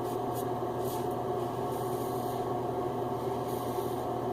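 Gillette Red Tip Super Speed safety razor scraping over a lathered scalp on an against-the-grain pass: several faint, short rasping strokes at irregular intervals, over a steady background hum.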